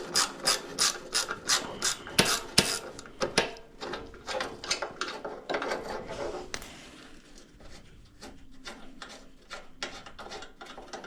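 Hand socket ratchet clicking in quick, even strokes, about three a second, as a bolt is backed out, then slower, scattered clicks that fade about halfway through.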